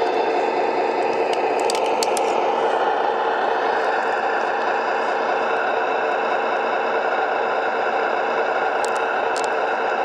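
Tamiya Scania R620 radio-controlled truck running, a steady mechanical noise with a few sharp clicks about two seconds in and again near the end.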